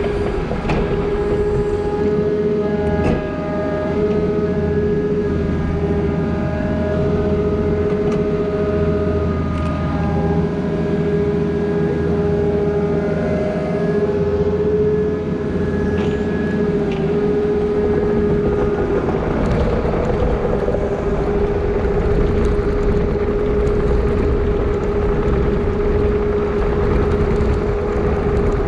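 Diesel earthmoving machine running steadily, with a constant whine and extra higher tones that come and go in the first half.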